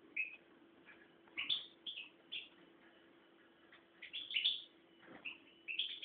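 European goldfinch giving short, high chirping calls, singly and in quick clusters of two or three, with a faint steady hum underneath.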